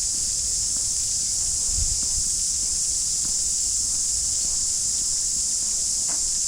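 A steady, unbroken high-pitched drone of cicadas singing in chorus, with soft footfalls thudding underneath.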